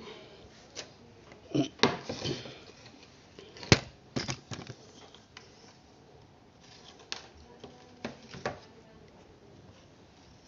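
Hands handling audio cables and plugs around an effects unit and mixer: a scattered string of small clicks and light knocks, the sharpest click about three and a half seconds in.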